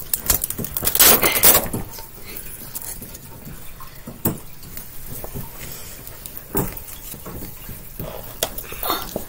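Wire grid panels of a guinea pig cage clinking and rattling as they are handled and fitted together: a cluster of clinks about a second in, then a few single knocks.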